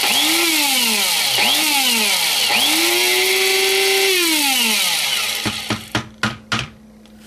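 Electric blade spice grinder grinding dried smoked habanero chillies, pulsed in three bursts, the motor whine rising and falling with each. The last burst runs about two seconds before the motor winds down. Near the end come about six sharp taps.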